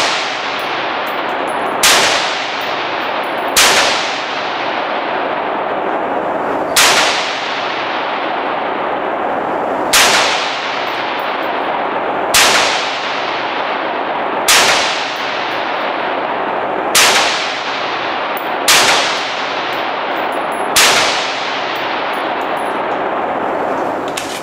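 AR-15 rifle in .223/5.56 firing single aimed shots, about nine of them, spaced one and a half to three seconds apart. Each shot is followed by a long echoing tail from the enclosed indoor range.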